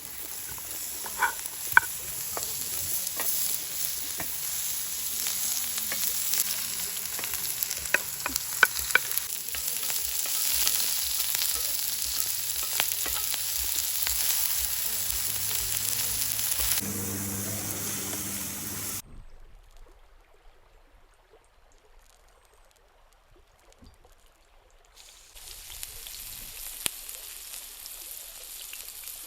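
Food sizzling in a hot pan, a dense hiss with sharp pops of spattering fat. A little past halfway the sizzle cuts out suddenly, leaving several seconds much quieter, and it comes back softer near the end.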